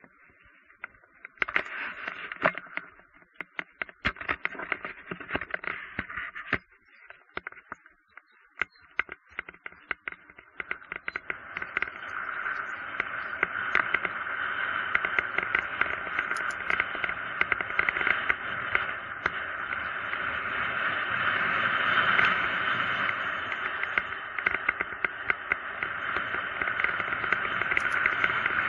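Mountain bike rolling fast down a paved road, heard through a bike- or helmet-mounted action camera: scattered clicks and rattles at first, then a steady rushing of wind and tyre noise that builds a little before halfway and stays up, thin-sounding with little bass.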